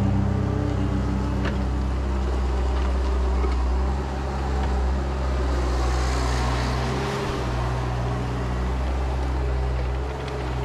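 2017 ASV RT-60 compact track loader's diesel engine running steadily as the machine works, its note shifting about four seconds in.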